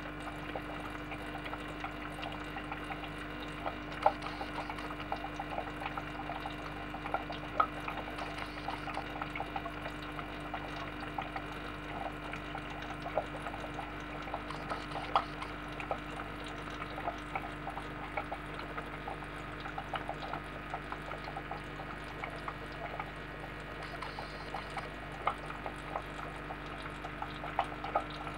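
Aquarium water trickling and bubbling, with scattered small drips and pops over a steady low hum.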